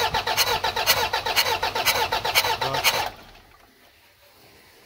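Toyota 2KD four-cylinder common-rail diesel engine cranking on its starter motor in even pulses of about five a second without catching; the cranking stops suddenly about three seconds in. The engine is failing to start.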